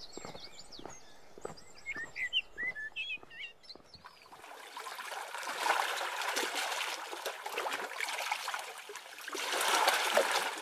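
Birds chirping and trilling over a faint trickle of water. About four seconds in, this gives way to the wash of small waves lapping against shore rocks, rising and falling and swelling twice.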